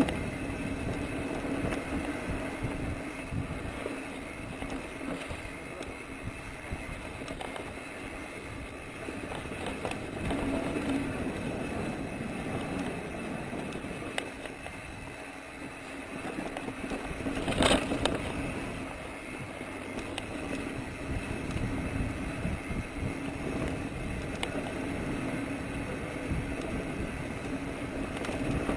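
Mountain bike rolling down a dirt trail: steady tyre rumble on the dirt with the bike rattling over bumps, and one sharp knock about two-thirds of the way through.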